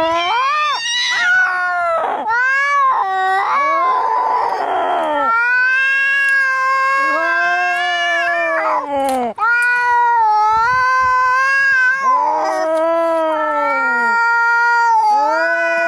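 Angry cats caterwauling as in a cat fight: long, wavering, drawn-out yowls one after another, with a harsh hiss about four seconds in.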